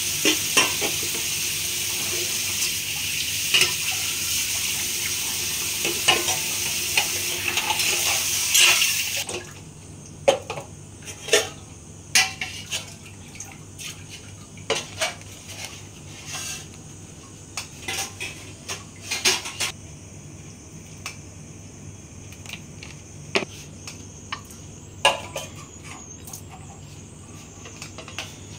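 A loud steady hiss with clicks fills about the first nine seconds and cuts off suddenly. After it come scattered light clicks and taps of a spoon against a plate as spice powders are sprinkled over raw paneer pieces, then soft handling sounds as the pieces are mixed by hand.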